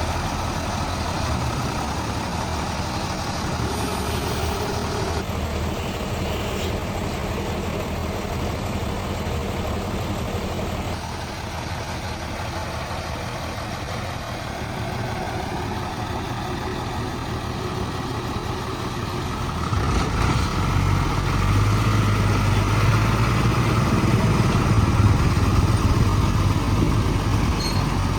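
Heavy diesel engine running steadily, then growing louder and deeper about two-thirds of the way through as it comes under more throttle.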